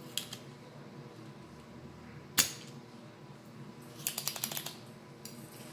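Desoldering work on a circuit board. A single sharp snap about two and a half seconds in, typical of a spring-loaded desoldering pump firing. Light clicks come before it, and a quick rattle of small clicks follows about four seconds in.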